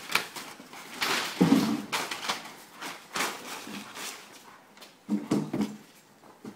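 A dog making short vocal sounds in irregular bursts, mixed with scuffling noises.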